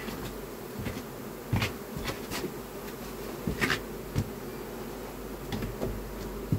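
Steady buzzing of a crowded honeybee colony, with a few wooden knocks as a hive super is lifted and set onto the hive.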